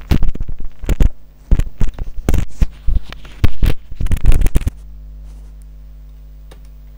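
Irregular rustling and scraping noise, loud and uneven, for about four and a half seconds. It then gives way to a steady low electrical hum.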